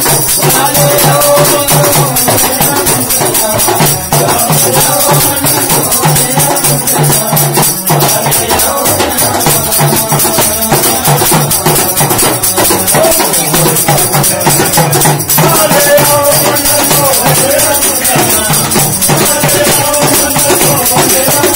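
Devotional folk group music: men singing together over a harmonium, with small hand drums struck with thin sticks and hand clappers keeping a fast, steady rhythm.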